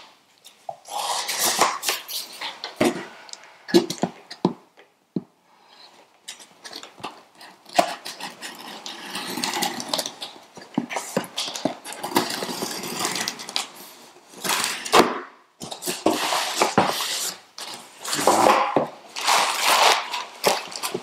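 A cardboard shipping box being opened by hand: packing tape slit and pulled, cardboard flaps handled, and plastic air-cushion packing rustling as it is lifted out near the end. The sound is a run of stop-start scrapes, rustles and sharp clicks.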